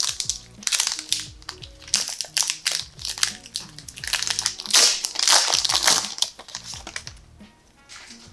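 Crinkling and tearing of a Pokémon Evolutions booster pack's foil wrapper as it is ripped open, in a run of crackly rustles that is densest about five seconds in. Soft background music plays underneath.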